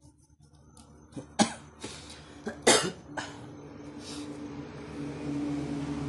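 A person coughing several times in short, sharp bursts, the loudest about a second and a half and almost three seconds in. Under them, a steady mechanical hum builds up from about halfway.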